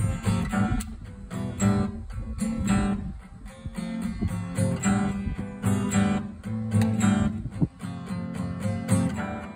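Two acoustic guitars, a nylon-string classical guitar and a steel-string acoustic, strummed and picked together in a steady rhythm.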